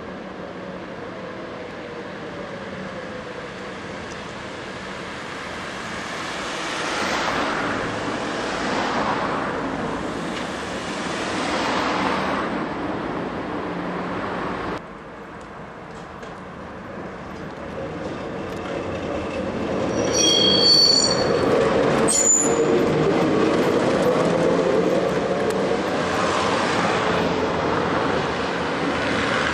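Gotha T2-62 two-axle tram rolling along street track toward and past the listener, with a brief high-pitched wheel squeal about two-thirds of the way through. In the first half, road traffic passes twice, and the sound drops suddenly about halfway before the tram noise builds up again.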